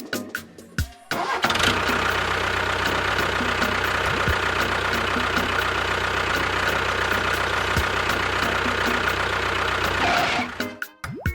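A vehicle engine running steadily at an even pitch. It comes in suddenly about a second in and cuts off near the end, with rhythmic music briefly before and after it.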